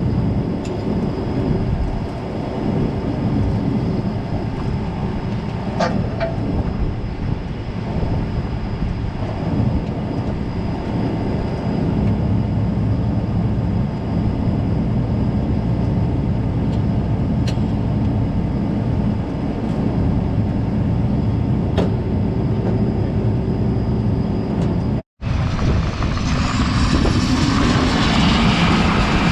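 Vehicle engine running steadily on the road, a low drone with a few faint ticks, while towing a combine head cart. About 25 seconds in the sound cuts out for an instant and gives way to a different, brighter machine noise.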